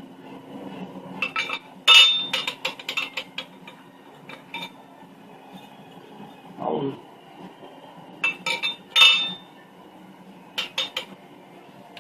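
Small metal parts and tools clinking and clattering against each other in short bursts, the loudest about two seconds in and again near nine seconds, as the air compressor's piston assembly is worked on by hand.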